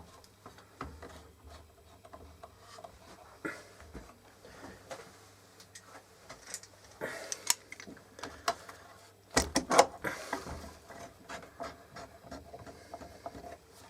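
Small wooden blocks being handled and set in place for clamping: scattered light knocks, clicks and rubbing, with a louder cluster of knocks about nine and a half seconds in.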